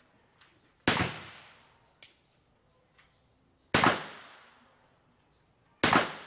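Three single gunshots fired one at a time, about three seconds and then two seconds apart. Each is a sharp crack that dies away in a tail lasting about a second.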